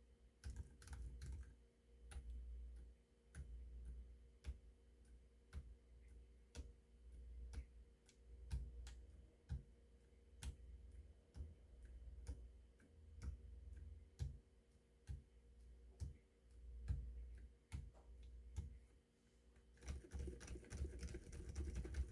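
COX Pinnace mechanical keyboard with stock Outemu Peach switches being typed on: separate keystroke clicks at an uneven pace, then a quick run of fast typing near the end.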